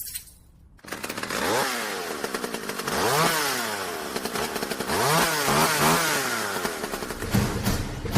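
A small engine revved up and falling back several times, with three quick revs in a row past the middle; a run of short, regular knocks starts near the end.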